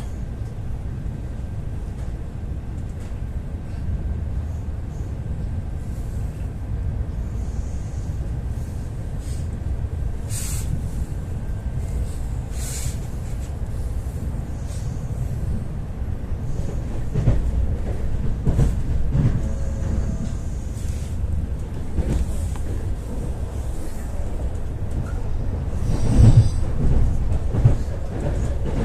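Ivolga 4.0 electric multiple-unit train running between stations, heard from inside a carriage: a steady low rumble with a few sharp knocks from the wheels and bogies, the loudest cluster near the end.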